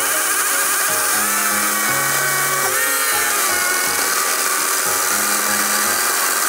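ES Industries 54V cordless chainsaw with a brushless motor and 14-inch bar running and cutting through a square length of pine timber, a steady high motor whine that wavers in pitch as it cuts. Background music plays along with it.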